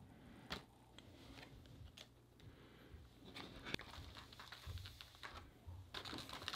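Faint light clicks and rustles of trading cards being handled and set down on a table, with a soft crinkle of a foil pack wrapper near the end as a pack is taken from the box.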